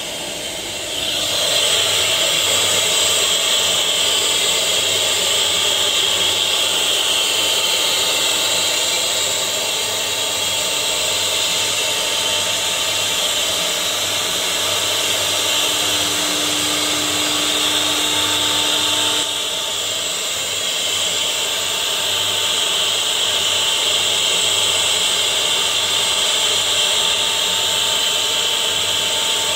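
CNC router spindle running at high speed, its bit cutting letters into a wooden sheet: a steady high whine with cutting noise. It gets louder about a second and a half in and dips briefly a little past the middle.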